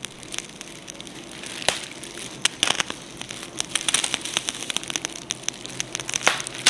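Fire crackling: a dense, irregular run of sharp pops and snaps over a hiss, laid under an animated burning-flame title.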